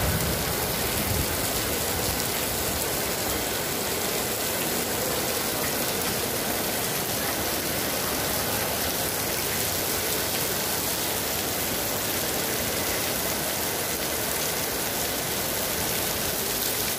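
Torrential rain falling steadily: a dense, even hiss of a heavy downpour.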